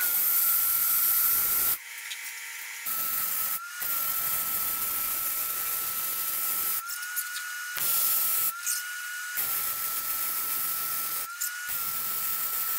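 MIG welding on a steel truck frame: the arc crackles and hisses in several short welds of one to three seconds, stopping and restarting about six times. A steady high whine runs under it throughout.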